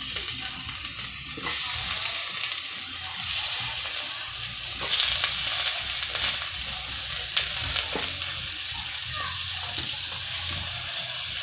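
Raw chicken pieces sizzling as they are dropped into hot oil with sautéed onion and garlic in an aluminium pot. The sizzle jumps louder about a second and a half in, and again around five seconds in as more pieces go in, with a few short clicks in between.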